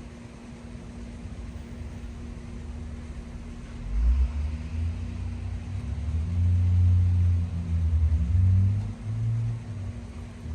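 A low rumble that swells about four seconds in and comes and goes in heavy surges, over a faint steady hum.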